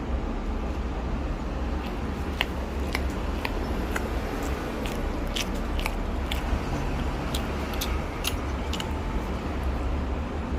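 A person biting into and chewing fast food, with crisp crunches scattered throughout, over a steady low rumble.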